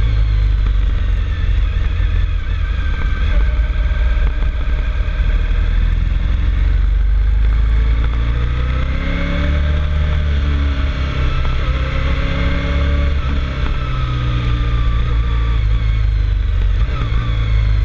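Motorcycle engine pulling uphill at speed, its pitch rising and falling with the throttle and gear changes, over a heavy low rumble of wind and road noise.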